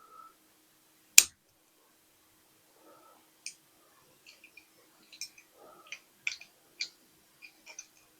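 Small hard clicks and taps of a diecast toy truck's metal and plastic parts being handled while it is taken apart: one sharp click about a second in, then a scatter of lighter clicks.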